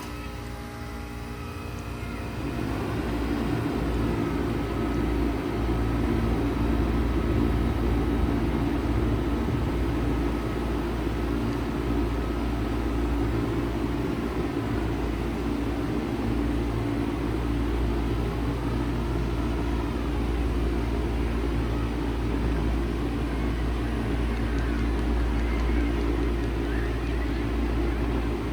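1995 Bard 3.5-ton wall-hung heat pump starting up in cooling mode: the sound builds over the first few seconds, then the unit runs with a steady low hum.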